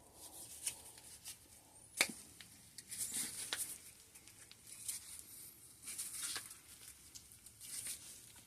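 Small clicks and short scrapes of hand tools and small metal shock parts being worked apart, as a shock damper's parts and O-rings are pried loose; one sharp click about two seconds in.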